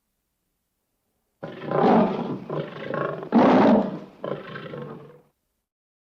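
Persian (Asiatic) lion roaring. A run of about four rough roars follows one another closely, starting about a second and a half in, with the third the loudest. They stop about a second before the end.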